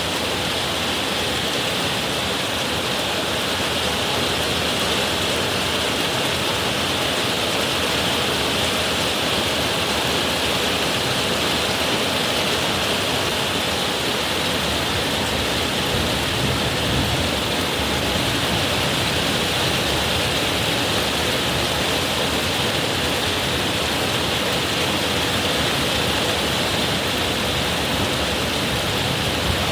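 Heavy rain pouring steadily in a downpour, an even hiss with no breaks or distinct thunderclaps.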